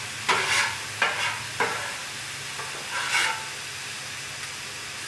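Steel scraper and spatula scraping across a hot Blackstone griddle's steel cooktop, clearing cooked-on residue toward the grease catch pan: a run of short scrapes in the first two seconds and another about three seconds in, over the sizzle of food frying on the griddle.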